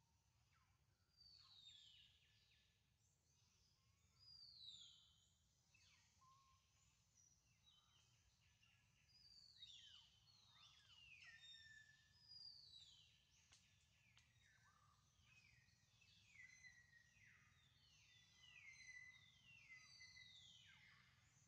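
Faint birds calling: many short whistled notes, each falling in pitch, overlapping and repeating over a low steady hum.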